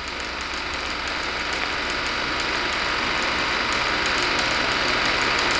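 Steady hum and hiss of old film playback, with faint fast ticking on top, slowly growing louder.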